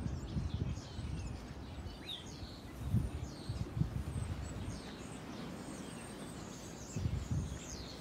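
Strong gusty wind buffeting the microphone as a low rumble that swells in gusts, loudest about three seconds in and again near the end. Over it, a flock of small birds chirps and calls in short, rapid notes.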